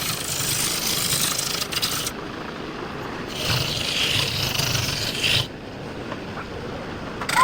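Woodturning lathe: a tool scraping against the spinning wood in two passes of about two seconds each, with a low motor hum beneath. It drops to a quieter run of the lathe between the passes and in the last two seconds.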